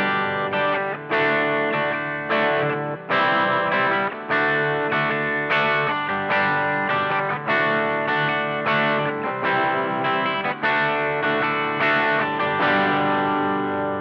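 Gibson Les Paul electric guitar played through a prototype FET overdrive pedal into a Blackstar HT5 valve amp, with Holy Grail reverb: mildly overdriven chords struck about once a second, the last one left ringing and fading near the end.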